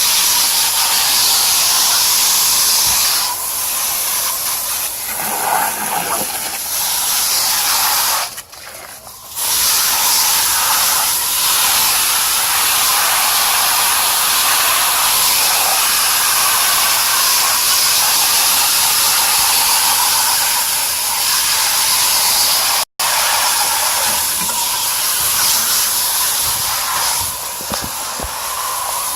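Garden hose spraying water through the fins of an air-conditioning coil, a steady loud hiss as cottonwood is rinsed out of the clogged coil. The spray stops briefly about a third of the way in, then runs on.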